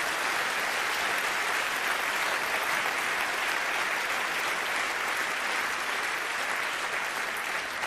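Large audience applauding, steady even clapping.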